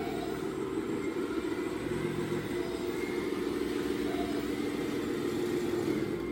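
Radio-controlled scale Volvo articulated dump truck driving on a tiled floor: a steady mechanical hum from its drive, getting slightly louder as it comes closer.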